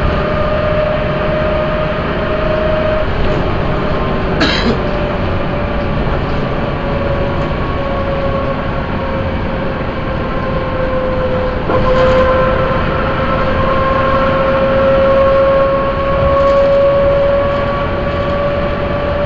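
Leyland Lynx single-deck bus heard from inside the saloon while under way: a dense engine and road rumble with a steady whine that sags slightly, then shifts about twelve seconds in and slowly climbs again. A brief knock about four seconds in.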